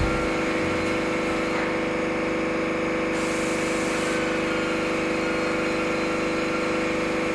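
A machine running steadily, an even mechanical whir with a constant hum, with a brief added hiss about three seconds in.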